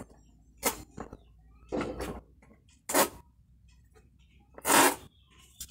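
Cardboard carton of bottled water being handled and opened by hand: several short scraping, rustling bursts of the flaps and packing, the longest and loudest near the end.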